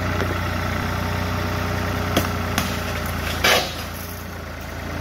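An engine idling steadily, with a few sharp knocks over it, the loudest about three and a half seconds in.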